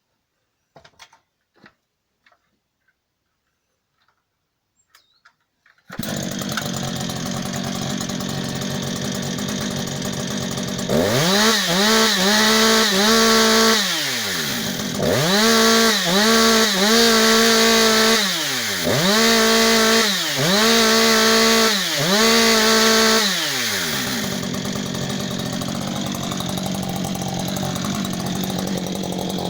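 A few faint clicks, then about six seconds in a two-stroke chainsaw comes in suddenly, already idling. From about eleven seconds in it is revved to full throttle five times in a row, each rev rising quickly to a high held whine and falling back. It then settles to idle. The saw is free-revving to maximum chain speed, not cutting.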